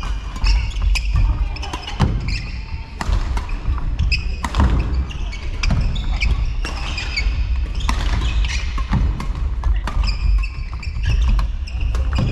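Badminton rally: rackets striking the shuttlecock in sharp cracks, with shoes squeaking on the court floor and footfalls between the shots, echoing in a sports hall.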